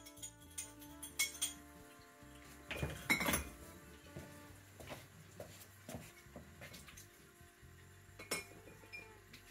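Glass beer bottle clinking and knocking against the tap of a plastic fermenter as young beer is run into it for bottling, with a scatter of light clinks and the loudest cluster about three seconds in.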